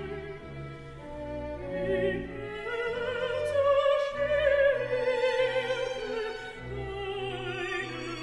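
Baroque oratorio music: a singer with wide vibrato over bowed strings and a bass line that steps from note to note, swelling louder midway.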